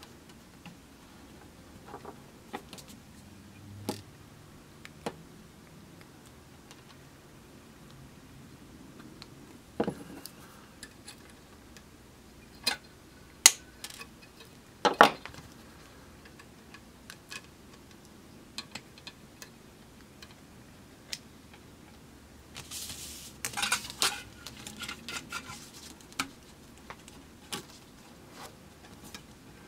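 Copper wire being bent and handled with small jewellery pliers, making scattered light metallic clicks and clinks. Two sharp clicks come a little past the middle, and a quick flurry of scraping and clinking comes a few seconds before the end.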